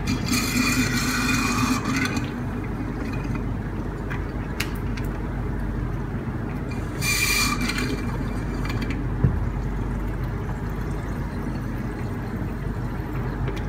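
Distilled water squeezed from a plastic bottle into a PC water-cooling reservoir, heard as two short spells of splashing and rustling, the first near the start and the second about seven seconds in. A steady low hum runs underneath, with a single click about nine seconds in.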